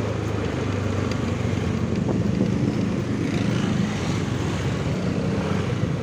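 Motorcycle engine running at low speed in slow, congested traffic: a steady low engine hum with road and wind noise on the microphone.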